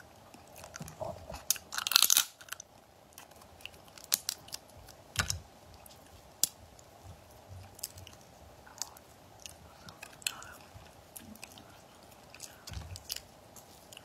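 Shells of cooked crab claws cracked and picked apart by hand, mixed with chewing: irregular sharp cracks and crunches, the loudest about two seconds in.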